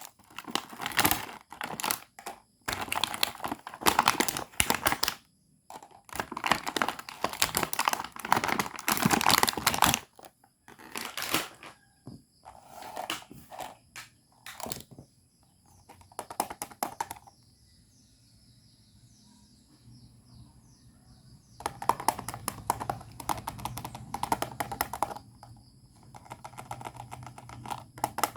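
Small plastic toy pieces and packaging handled and unboxed: rapid clicking, rattling and crinkling in bursts of a few seconds with short pauses, and a faint low hum under the second half.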